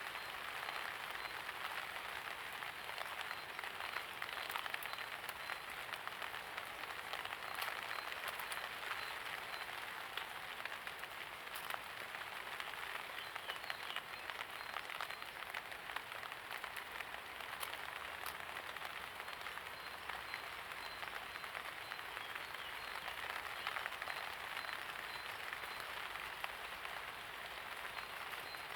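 Light rain falling steadily, a dense patter of fine drops with a few sharper individual drips.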